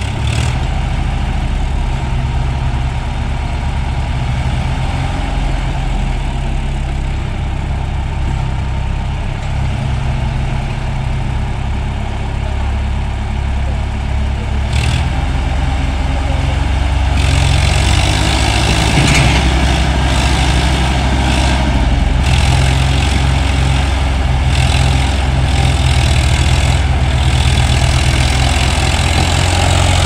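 Diesel engines of a Swaraj tractor and an excavator running, the tractor's near the microphone. About halfway through the engine noise grows louder and harsher as the tractor starts pulling its loaded trolley forward.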